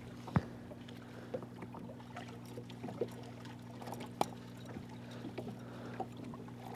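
Small water splashes and knocks at the boat's side as a landed muskie is held in the water and unhooked, with scattered sharp clicks, the loudest about four seconds in, over a steady low hum.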